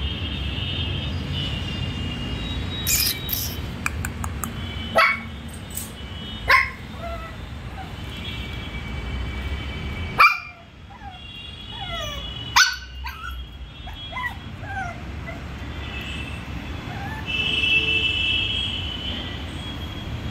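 Shih Tzu puppies yipping and whimpering in short, high, falling cries, with four short, sharp, loud barks, over a steady low background rumble.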